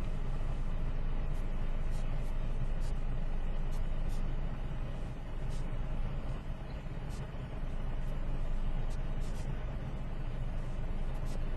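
A car running, heard from inside the cabin as a steady low engine hum, with faint scattered light ticks.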